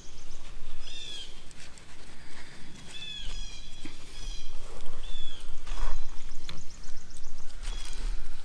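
Songbirds calling: a short chirp repeated about every second, with a rapid high trill in the middle. Under it runs a low rumble that swells now and then, with a few soft knocks.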